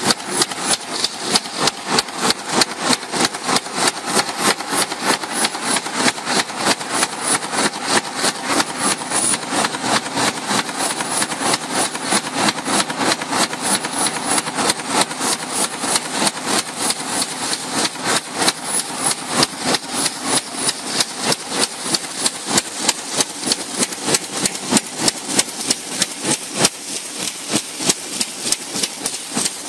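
Baykal CNC turret punch press punching holes in sheet metal: rapid, evenly spaced punch strokes, several a second, over the machine's steady running noise with a faint high whine.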